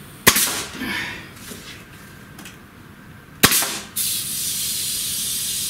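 Pneumatic nail gun firing twice, about three seconds apart, each a sharp crack with a short puff of exhaust air. A steady hiss of escaping air starts about four seconds in.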